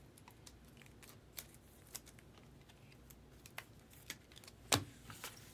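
Clear plastic card holders and sleeves being handled: scattered light clicks and taps, with one sharper click near the end.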